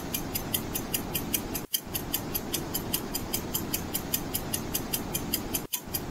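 Countdown timer sound effect: rapid, even clock ticking, about four ticks a second, over a steady rushing noise, and the sound cuts out briefly twice.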